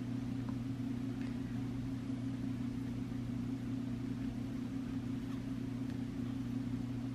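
A steady low machine hum with a constant pitch.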